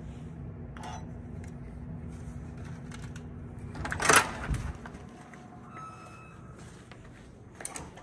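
Hotel room door being worked by its lever handle: the latch and door give one loud clunk about halfway through, after which the steady background hum is lower. A smaller click comes near the end.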